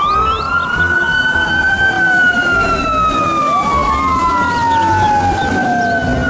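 Fire-truck siren wailing in slow glides up and down in pitch. A second wail starts rising over the first about halfway through.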